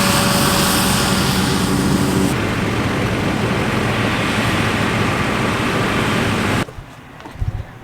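A vehicle engine running loudly with a steady rushing noise, cutting off abruptly about six and a half seconds in.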